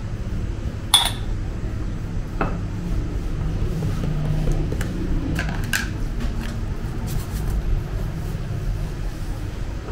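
A few sharp clinks of metal bowls and utensils on a stone worktop, the loudest about a second in, over a steady low hum.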